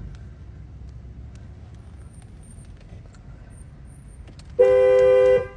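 A car horn sounds one loud, steady blast of under a second near the end, two notes held together, after several seconds of a low background rumble.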